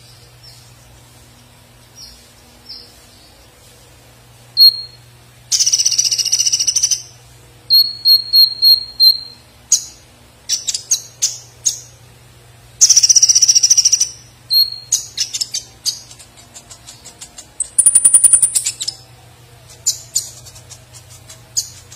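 Caged purple-throated sunbird (kolibri ninja) singing: short high whistles, rapid clicking runs and three loud dense bursts of chattering song, the last one higher and buzzier. A faint steady low hum runs underneath.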